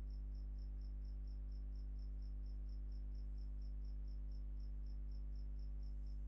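A cricket chirping steadily in the background: a rapid, even train of short high pulses, about five a second. Under it runs a steady low electrical hum.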